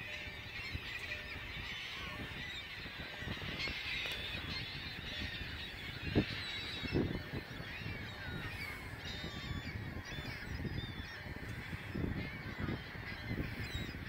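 A very large flock of gulls in flight, calling all together in a dense, continuous chorus of overlapping squawks, with a couple of low thumps about six and seven seconds in.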